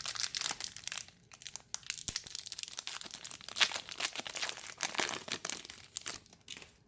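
Foil wrapper of a Pokémon trading card booster pack crinkling as it is torn open and handled, a dense run of crackles that dies away near the end.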